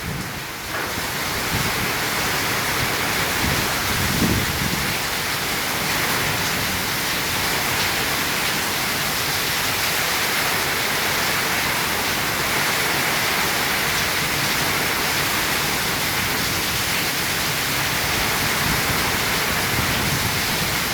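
Heavy rain pouring down in a steady, dense hiss, with a brief low rumble about four seconds in.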